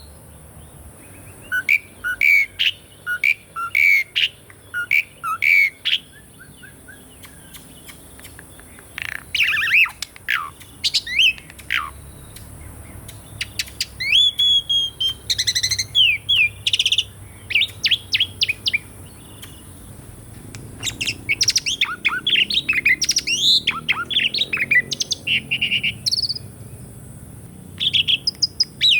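Asian pied starling (jalak suren) singing: quick runs of whistled notes, rising and falling slurs and chatters, in bursts with a pause of a few seconds early on and a dense stretch near the end.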